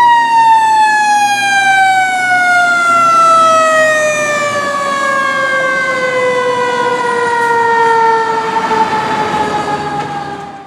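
Fire engine siren winding down: one long, loud tone gliding lower in pitch, the fall slowing as it drops. It fades and cuts off at the very end.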